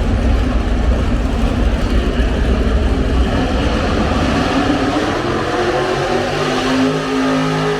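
Pulling tractor engine running hard, a heavy low rumble; in the last couple of seconds a steadier pitched engine note comes through with a rising whine.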